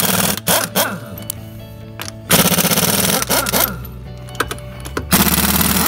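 Ingersoll Rand 231HA half-inch air impact wrench hammering on wheel lug nuts in bursts of about a second, three times, its pitch falling after each burst as it winds down. Background music plays throughout.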